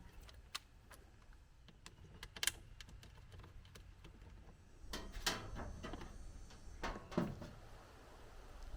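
A few scattered clicks and knocks over a low rumble, the loudest about two and a half seconds and five seconds in: parts being handled while a washing machine's back cover is refitted and screwed on.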